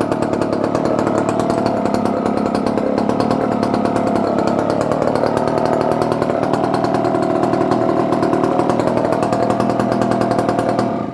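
Dolmar 118 Super two-stroke chainsaw engine running steadily, its pitch wavering slightly, then shut off near the end. The owner judges its carburetion a little off at idle.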